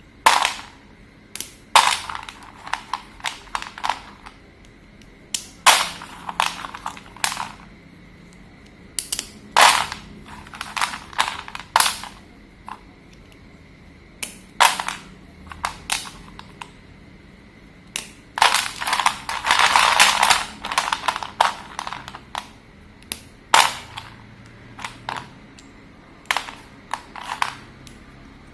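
Slate pencils being snapped and crumbled: sharp, crisp cracks come in irregular clusters with short pauses between, and there is a longer, denser run of crunching about two-thirds of the way through.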